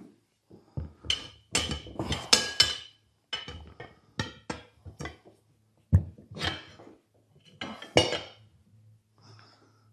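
Steel tire irons clanking and scraping against a riding mower tire's steel rim on a manual tire changer as the tire bead is pried off. The metallic clanks come in an irregular series, loudest about two and a half, six and eight seconds in.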